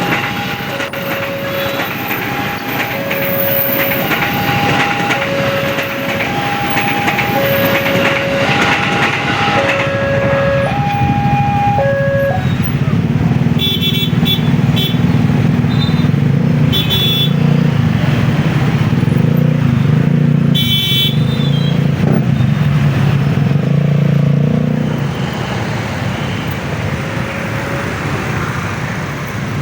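Level-crossing warning alarm sounding an alternating two-tone signal, high and low notes taking turns about once a second, which stops about twelve seconds in. A low engine rumble of road traffic then builds and holds for about twelve seconds, with several short horn toots.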